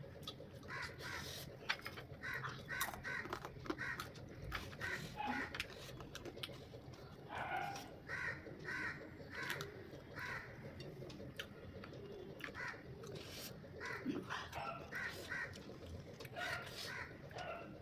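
Birds calling over and over in short repeated calls, with scattered short clicks and taps.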